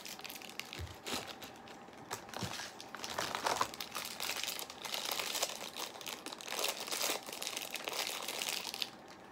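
A small toy figure's green plastic wrapper being unwrapped by hand. A few separate rustles come in the first seconds, then a continuous run of crinkling from about three seconds in until near the end.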